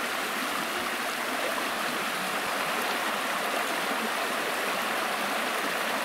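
A small, fast taiga river rushing over a shallow riffle: a steady rush of water.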